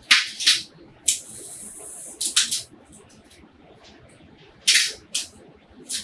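Shards of a cracked LCD cover window scraped and pried out of a Canon 400D's plastic rear housing with tweezers: a run of short, crisp scratching crackles, with a longer steady hiss about a second in.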